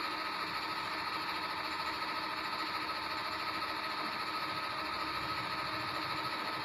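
Steady background hum and hiss of a room, with a few faint steady tones running through it and no separate strokes or knocks.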